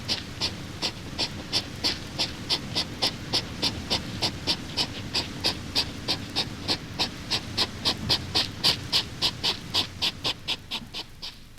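Hedgehog sniffing and snuffling: a steady run of short, sharp sniffs, about three to four a second.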